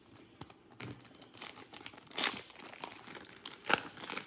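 Foil wrapper of a basketball trading-card pack being crinkled and torn open by hand, with sharp crackles about two seconds in and again near the end.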